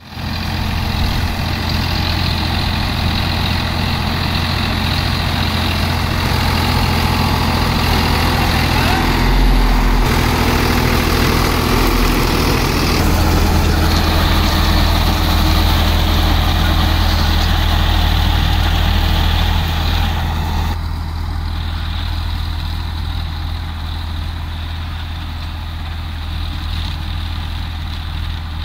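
Sonalika DI 745 III tractor's diesel engine running steadily under load, driving a Shaktiman rotavator whose blades churn through soil and crop stubble. About 21 seconds in, the sound becomes quieter and more distant.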